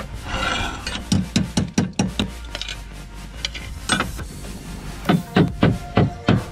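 Slater's hammer striking natural slate on a chimney's timber, sharp taps each with a dull thud, irregular at first and then a steady run of about three blows a second near the end.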